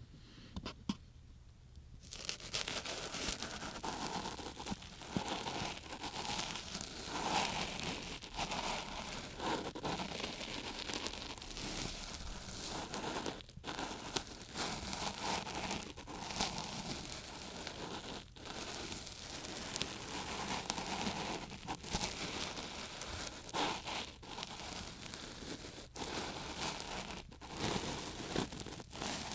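Ear cleaning on an ASMR microphone: an ear pick scraping and rubbing inside the microphone's ear, heard as a close, continuous scratchy crackle. It starts about two seconds in and breaks off briefly a few times.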